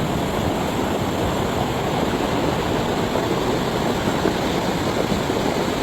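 Floodwater rushing through a street: a steady, even rush of fast-moving water.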